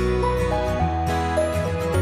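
Instrumental background music: a melody moving note by note over sustained low notes.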